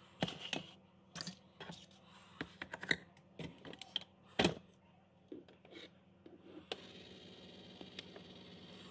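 Clicks and knocks of a mug being handled and set on the drip tray of a Keurig single-serve coffee maker. About seven seconds in, a sharp click, then a steady hiss and hum starts as the machine begins running.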